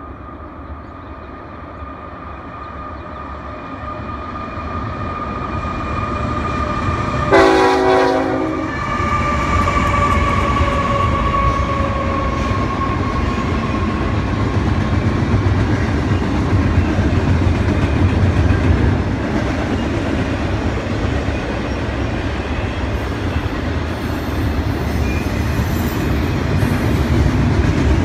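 Union Pacific double-stack intermodal freight train approaching and crossing a steel trestle bridge. The locomotive horn sounds through the first ten seconds or so, loudest in a blast about seven seconds in. After that comes the steady rumble and clatter of the container cars rolling over the bridge.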